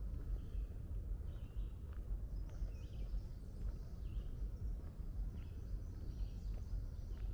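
Songbirds chirping in the woods, short calls every second or so, over a constant low rumble.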